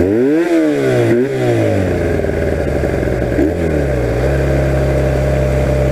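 1982 Honda motorcycle engine revved in two quick blips, a smaller blip about three and a half seconds in, then settling to a steady idle. Water that was making it idle high has been poured out of its carburetor bowl.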